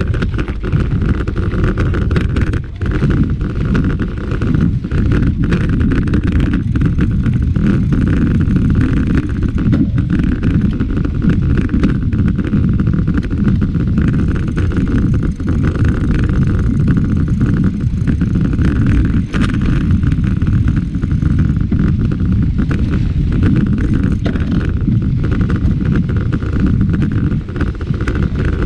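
A mountain bike on Maxxis Ardent knobby tyres rolls over a dry dirt trail, heard from a handlebar-mounted camera. A steady, loud rumble of tyre noise and wind on the microphone carries frequent small knocks and rattles from bumps.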